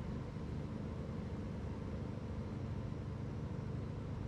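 A steady low machine hum, unchanging throughout.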